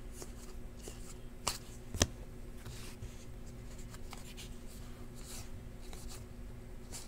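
A stack of trading cards being flipped through by hand, with soft sliding and flicking as each card is moved, and a sharper snap about two seconds in. A faint steady hum runs underneath.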